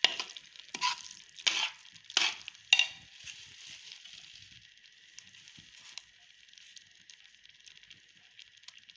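Metal spatula stirring thick carrot halwa in a steel pot: about five scraping strokes in the first three seconds, then the halwa sizzling faintly in its ghee.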